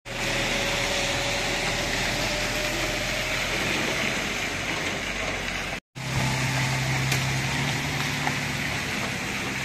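Car engines running at low speed as SUVs tow trailers loaded with tractors past, over a steady road noise. The sound cuts out for an instant a little past halfway and comes back with a stronger low engine hum that fades after a second or two.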